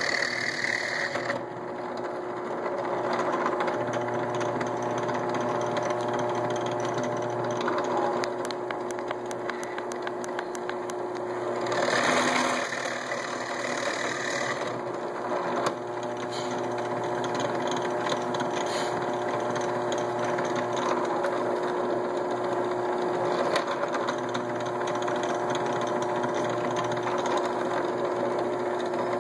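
Drill press motor running steadily while its bit drills holes through a wooden dowel, with a louder stretch of cutting about twelve seconds in.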